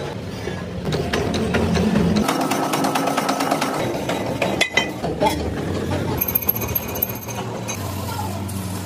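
Metalworking machines running: a fast, even mechanical clatter from a machine saw cutting steel pipe and a lathe turning it, the sound changing abruptly a few times as one machine gives way to another.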